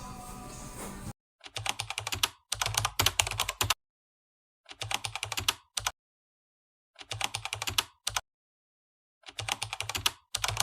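Computer keyboard typing sound effect: five short bursts of rapid keystrokes, each separated by dead silence, beginning about a second in.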